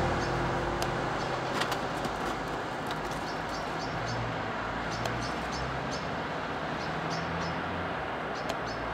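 Faint outdoor street ambience: a steady low traffic hum, with small clusters of short high-pitched squeaks and a few light clicks scattered through it.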